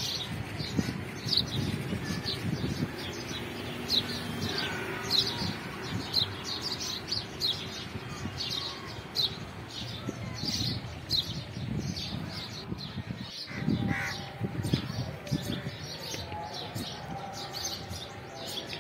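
Bird calling with a steady series of short, high chirps, a little over one a second, over a low rumbling background.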